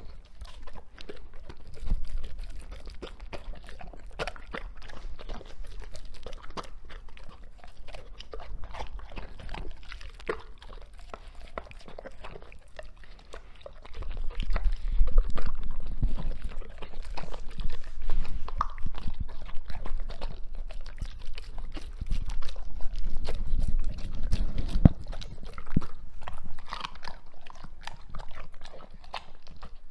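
A Doberman chewing and crunching a raw meal of meat and fish from a metal tray, a close, irregular run of bites and crunches that gets louder from about halfway.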